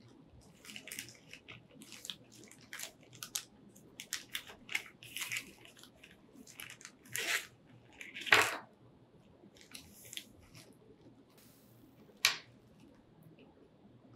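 Clear plastic zip bag crinkling and crackling in irregular short bursts as it is opened and the bowstring and small parts are pulled out. The loudest crackle comes about eight seconds in, and a single sharp snap follows about four seconds later.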